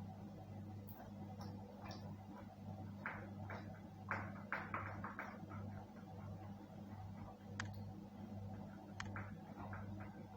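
Mukbang eating sounds: soft chewing and mouth clicks with light taps of a spoon, a quick run of them about four to five seconds in and a few single clicks later, over a steady low hum.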